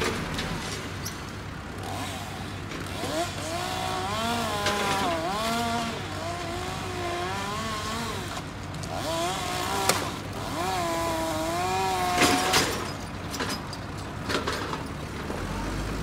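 A chainsaw runs up in the tree, its pitch dipping and rising for several seconds at a time as it works through the wood. There are a couple of sharp cracks near the end of the cutting. A low, steady engine drone is heard at the very start and comes back near the end.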